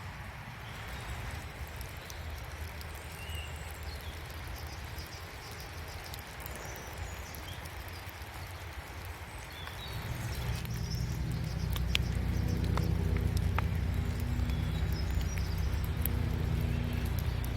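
Rain dripping and pattering in woodland, with a few faint bird chirps. About ten seconds in, a low engine hum comes in and holds steady, the loudest sound from then on.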